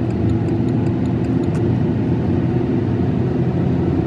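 A car driving, heard from inside: steady engine and road noise that does not rise or fall.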